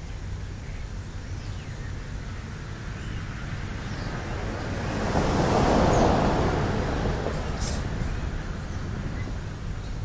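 A vehicle passing on the road, its tyre and engine noise swelling to loudest about six seconds in and then fading away, over a steady low outdoor rumble.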